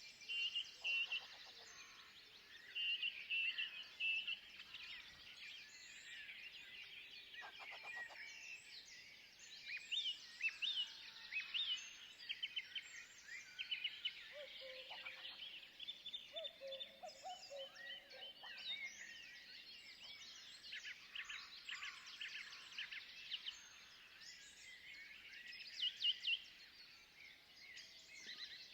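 Forest birdsong: several birds calling at once in a dense chorus of high chirps and trills, with a lower call for a few seconds around the middle.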